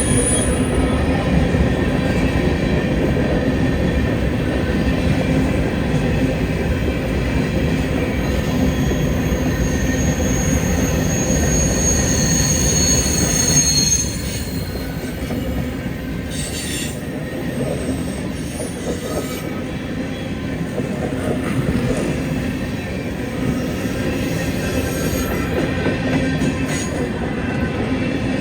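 A freight train rolling past, with a steady rumble of cars on the rails and a high wheel squeal for a few seconds before the middle. The sound eases somewhat about halfway through.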